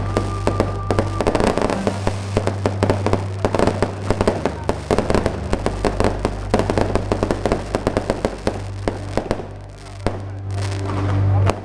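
Fireworks display: aerial shells bursting in a dense, continuous run of bangs and crackles, over a steady low hum. The reports ease briefly near the end, then pick up again.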